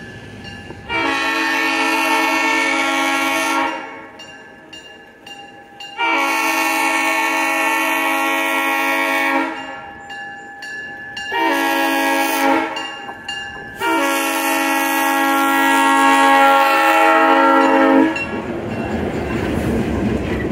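EMD GP9 diesel locomotive's air horn sounding the grade-crossing signal: long, long, short, long, the last blast the loudest. As the horn stops near the end, the locomotive passes close by with a rumble of engine and wheels.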